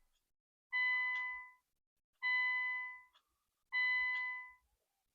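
Nissan Silvia S15's in-car warning chime dinging three times, evenly about every one and a half seconds, each ding fading out.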